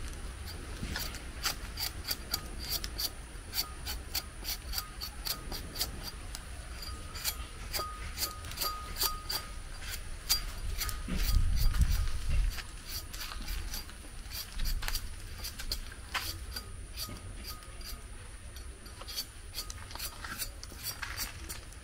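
A knife peeling a sweet potato by hand: short scraping strokes repeating a few times a second. A louder low rumble comes about halfway through.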